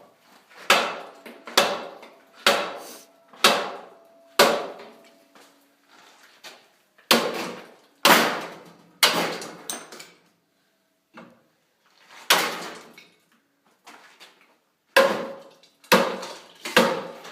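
Loud banging: about a dozen hard strikes in groups of two to five, roughly one a second, each ringing out briefly.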